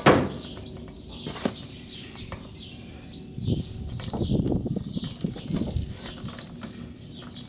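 A 32 mm socket turned by hand on a freshly broken-loose drive-shaft axle nut, giving an uneven run of clicks and scrapes about halfway through, after a sharp clack at the very start. Birds chirp in the background.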